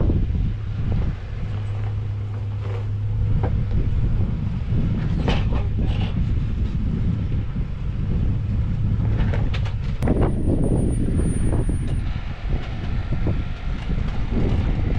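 Off-road vehicle engine running at low revs, a steady low hum with road and tyre noise over it and occasional knocks. A thin high tone sounds for about two seconds near the middle.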